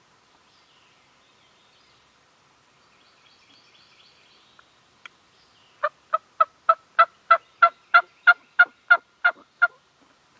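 A run of about thirteen sharp turkey yelps, evenly spaced at roughly three a second, starting about six seconds in, with faint songbird chirping before it.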